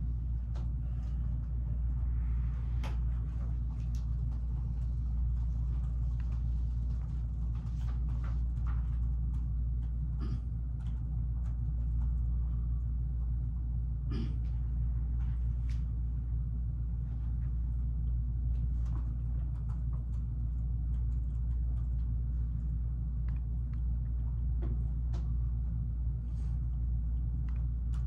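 Steady low hum of room and recording noise, with scattered small clicks and taps now and then.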